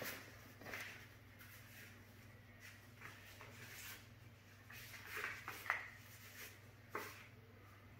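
Quiet kitchen room tone with a steady low hum and a few faint rustles and light knocks, a little busier in the second half.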